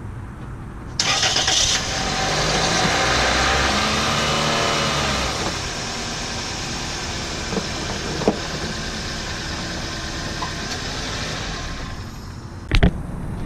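Car engine cranked and starting about a second in, just after an oil change, then running at a higher idle that settles down to a steady idle. A sharp knock near the end.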